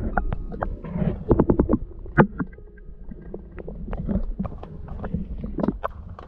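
Irregular knocks and clatters, with a quick run of heavy knocks about a second in and one sharp knock just after two seconds, followed by scattered lighter clicks.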